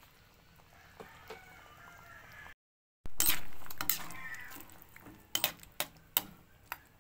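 A pan of chicken afritada stew simmering, with a metal utensil clinking against the pan: a loud burst of stirring and bubbling that fades, then several sharp separate clinks. The sound cuts out completely for a moment about two and a half seconds in.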